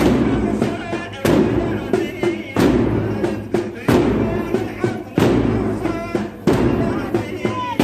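A crowd of mourners striking their chests together in the slow, even beat of a latmiya, about one loud collective slap every 1.3 seconds, with chanting voices between the strokes.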